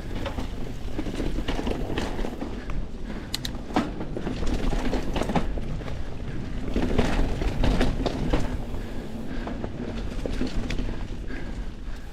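Mountain bike rolling over dirt singletrack: tyre noise with a steady low rumble and frequent rattling and clattering from the bike as it goes over bumps.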